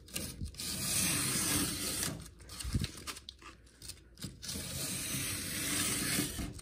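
A Tajima 25 mm snap-off utility knife blade slicing lengthwise through corrugated cardboard: long drawn cuts that make a scratchy, tearing hiss, the two longest, of about two seconds each, near the start and near the end.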